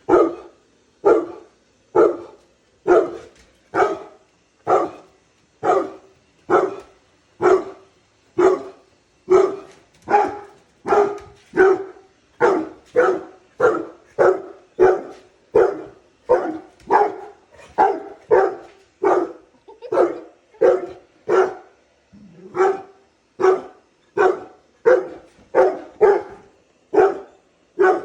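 Bullmastiff barking at a robot vacuum, one loud bark about every second in a steady run, with a short pause about three-quarters of the way through.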